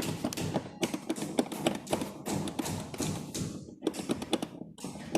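Irregular light taps and knocks of engine parts being handled during a teardown, several a second, with short pauses near the end.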